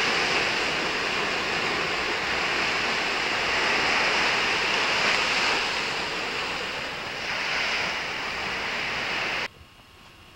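Steady rush of sea waves on a rocky shore, mixed with wind on the microphone. It cuts off abruptly near the end, leaving only a few faint ticks.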